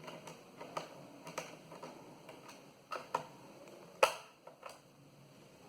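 Small clicks and taps of a screwdriver and hands working the screws and plastic hard-drive bay cover on the underside of a Sony laptop, with one sharp, louder click about four seconds in.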